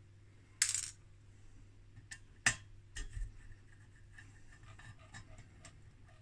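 A short scrape, then a sharp click and a run of faint small clicks: a hand screwdriver being set into and working small screws on a metal cavity-filter lid.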